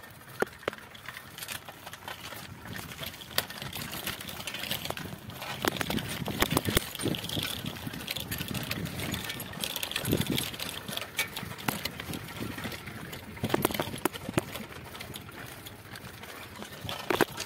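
Bicycle ridden over a rough dirt track: irregular rattling clicks and knocks from the bike over a steady rushing noise, louder through the middle.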